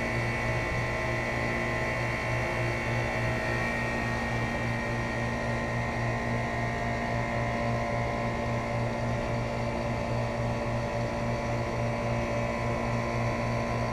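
2007 Guardian 4-ton central air conditioner's outdoor unit running steadily: a constant electric hum with a fast-fluttering low drone and a few steady higher tones.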